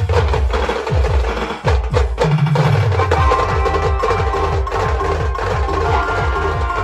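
Band music driven by heavy percussion. Deep bass notes drop in pitch and sharp drum strikes hit in the first half, then a steady pulsing bass beat takes over under sustained higher tones.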